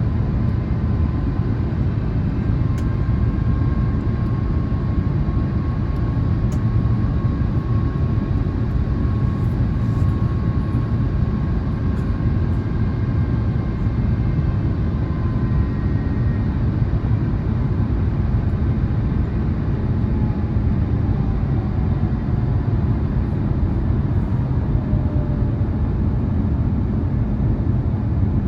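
Cabin noise inside an Airbus A350-1000 on approach: a steady low rumble of airflow and its Rolls-Royce Trent XWB engines, with faint thin tones above it, one sliding slowly down in the second half.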